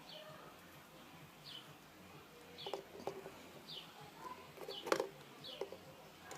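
A bird chirps faintly and repeatedly, short falling chirps about once a second. Between them come a few sharp metal clicks from needle-nose pliers bending back the tabs of a gauge housing, the loudest about five seconds in.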